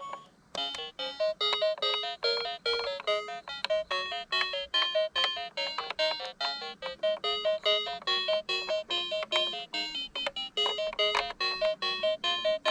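Upbeat music: a quick melody of short, bright keyboard-like notes, several a second, starting about half a second in.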